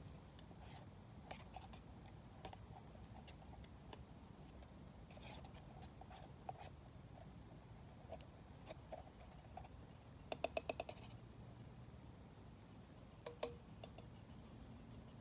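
Faint scattered clicks and scrapes of small camp cooking kit being handled, with a quick run of about seven sharp clicks around ten seconds in and two more a few seconds later.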